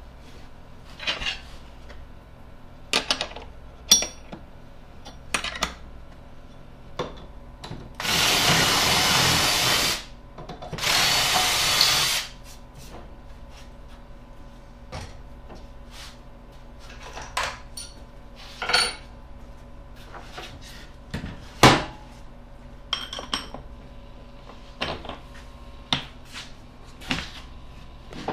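Cordless drill running in two bursts of about two seconds each, a little past a quarter of the way in, as it works in the wooden wheel centre. Scattered clicks and knocks of wood and tools being handled fill the rest.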